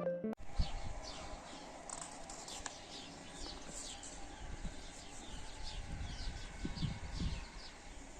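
Small birds chirping over and over, in short high falling notes, over a faint low outdoor rumble. Background music cuts off right at the start.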